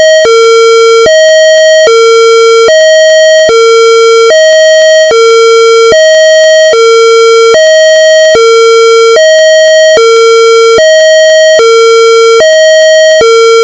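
Two-tone police siren sounding a hi-lo pattern: a higher note and a lower note held for just under a second each, switching abruptly and repeating steadily.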